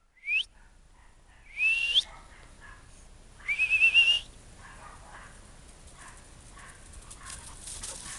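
A person whistling three times to call a dog: a short rising whistle, a longer one that rises at its end, then a warbling one about three and a half seconds in. Faint rustling follows while the dog comes running.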